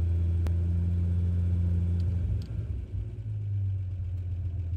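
Bentley inline-six engine idling with a steady low note. A little past halfway its sound drops and turns rougher and less even.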